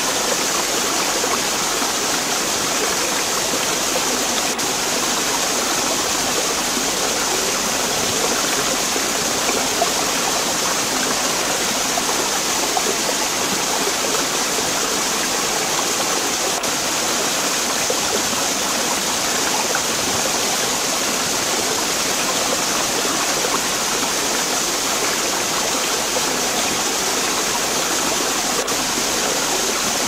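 Running water of a stream, a steady, unbroken rush.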